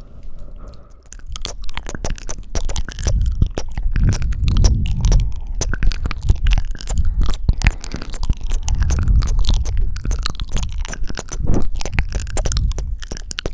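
ASMR mouth sounds right at the microphone: a dense, irregular run of wet kissing and sucking smacks, with low rumbling swells of breath on the mic every few seconds.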